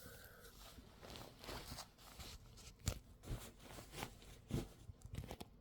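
Fabric rustling, likely bedding, broken by a handful of soft irregular thumps and clicks.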